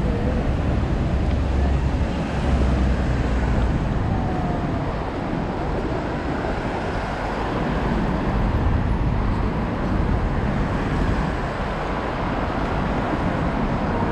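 Steady city road traffic noise with a heavy low rumble.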